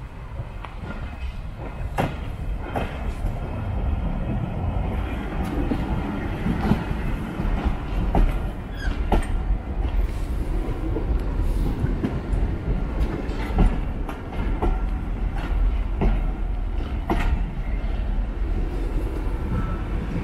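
Railway passenger coaches rolling past close by. There is a steady low rumble of wheels on the track, with irregular sharp clicks and knocks as the wheels cross rail joints. It grows louder over the first few seconds as the coaches draw near.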